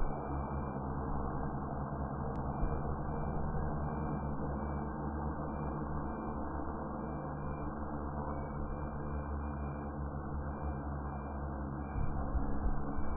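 DJI FPV drone hovering, its four motors and propellers giving a steady hum with several held tones; it gets louder near the end.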